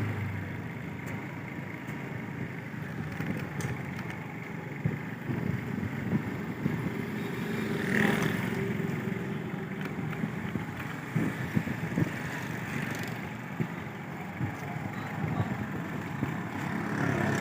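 Busy city street traffic, heard while moving through it: steady vehicle engine and road noise, with a brief louder sound about eight seconds in.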